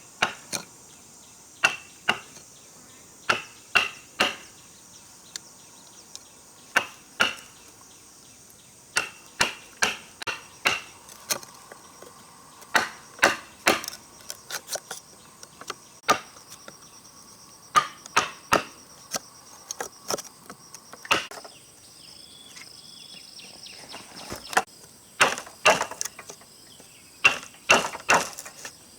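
Repeated sharp strikes of a hand tool on wood, coming in short irregular runs of two or three with pauses between, over a steady high chirring of insects.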